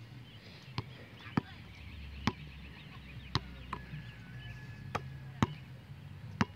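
Basketball bouncing on a hard outdoor court: about eight sharp single bounces at uneven intervals.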